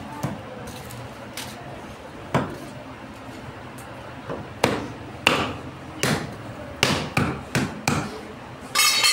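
Meat cleavers chopping through beef ribs on wooden stump blocks: sharp, irregular chops, spaced out at first and coming quicker in the second half. Near the end there is a brief loud pitched sound.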